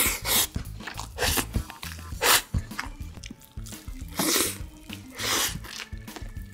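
Close-miked eating sounds: biting into a burger and a crunchy fried piece, with sharp crunching and smacking bursts about once a second. Background music plays underneath.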